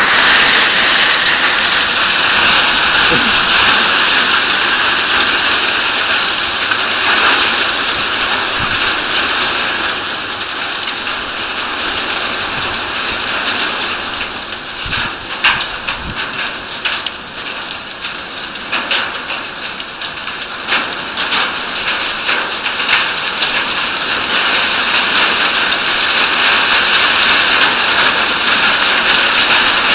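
A heavy downpour of rain and hail pelting down in a dense, steady hiss. It eases a little about halfway through, where separate hailstone hits click out sharply, then builds again.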